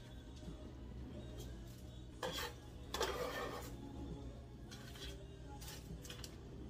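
Bench scraper scraping and knocking on a cutting board as onion trimmings are cleared off it: a few short scrapes, the loudest about two to three and a half seconds in.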